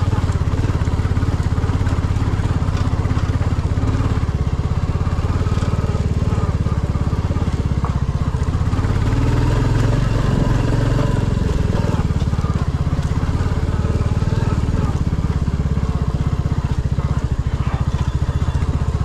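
Royal Enfield Classic 350's single-cylinder engine running at low speed on a rough dirt track, with the revs rising briefly about halfway through.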